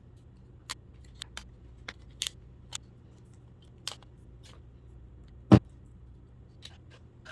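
Light scattered clicks and taps of small plastic parts and tools being handled while an alarm clock radio is taken apart, with one louder knock about five and a half seconds in.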